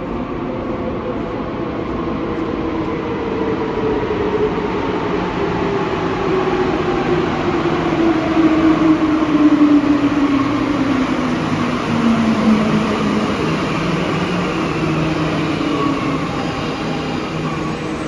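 Alstom NS-16 metro train arriving and braking to a stop. Its traction motors whine in several tones that fall steadily in pitch as it slows, over a rumble that is loudest about halfway through.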